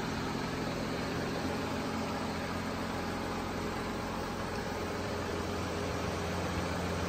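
Audi Q7's engine idling: a steady low hum with an even hiss over it.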